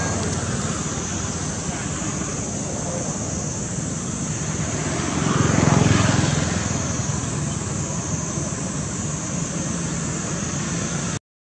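Steady outdoor engine rumble, with a motor vehicle passing about halfway through, swelling and then fading away. The sound drops out briefly at the very end.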